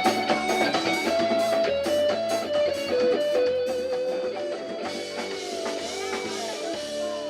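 Music with guitar carrying a melody over a drum beat; the drums drop away in the last couple of seconds.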